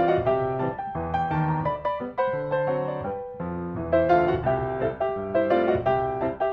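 Background piano music: a gentle melody of notes played over chords, with no cooking sounds audible over it.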